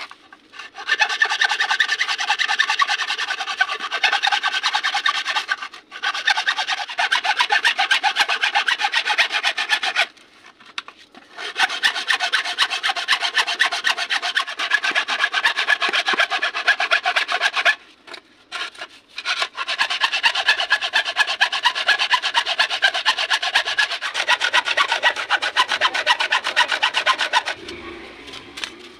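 Hacksaw cutting through a bamboo pole in rapid back-and-forth rasping strokes. The sawing comes in four spells with short pauses between them, and stops a little before the end.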